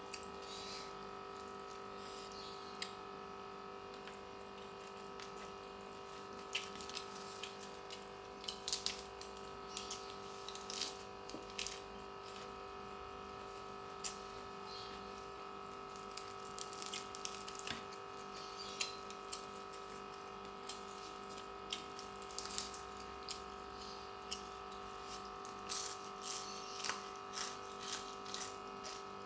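Eating by hand: fingers squishing rice and sambal, then chewing with wet mouth smacks and small crisp clicks, scattered irregularly through. Underneath is a steady electrical hum with several fixed tones.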